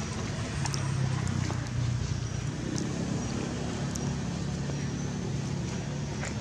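Steady low hum of an engine running, with a few faint clicks over it.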